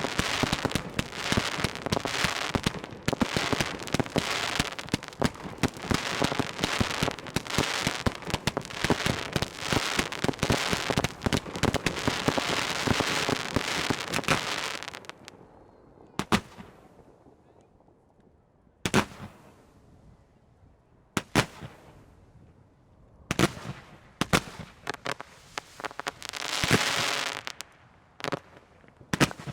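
Fireworks display: a dense, continuous barrage of overlapping bangs and crackling for about the first half. It then thins out to single sharp bangs a few seconds apart, with short bursts of crackling near the end.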